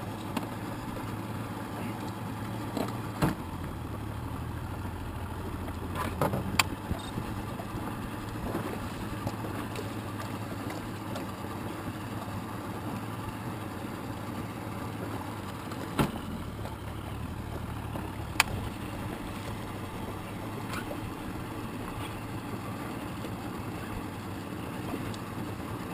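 Boat outboard motor idling steadily, a constant low hum. A few short sharp knocks and clicks stand out, about 3 seconds in, around 6 seconds, and twice later on.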